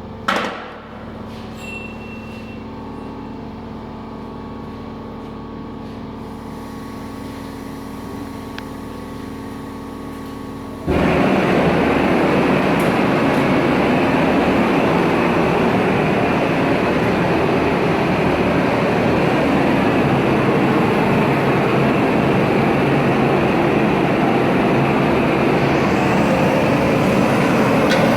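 Steady machine hum in a rim-repair workshop. About 11 seconds in, a much louder steady rushing noise starts suddenly and holds, typical of a gas torch burning to heat the alloy rim.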